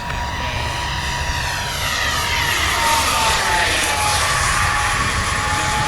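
Electric ducted-fan model jet, a 3D-printed Cessna A-37 Dragonfly, flying past with a steady fan whine that swells and drops slightly in pitch about halfway through as it passes. Wind rumbles on the microphone underneath.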